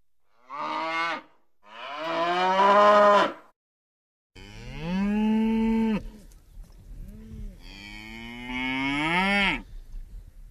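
Cows mooing. Two moos in the first few seconds, the second longer. After a brief silence come a long moo, a few fainter low calls, and a final long moo that rises in pitch before it fades. A low steady rumble sits under the later calls.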